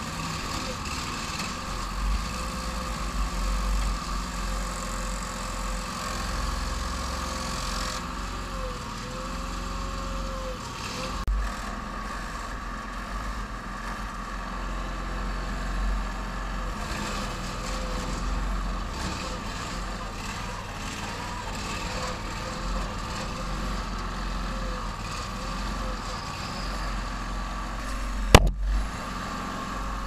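Engine of a homemade 4x4 backhoe excavator running steadily while the boom digs, with a faint whine that wavers in pitch. A single sharp click near the end.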